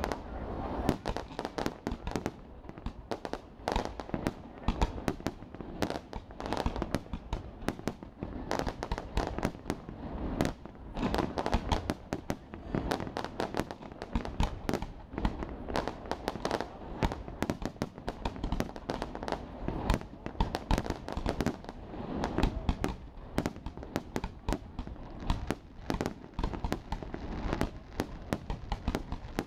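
Aerial fireworks display: shell bursts and crackling stars going off in a dense, continuous run of bangs and pops, with no pause.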